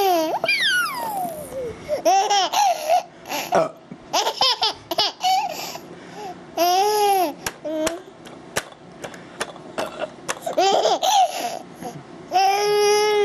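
Small child laughing in repeated high-pitched bouts, with a falling squeal about half a second in and a long held squeal near the end.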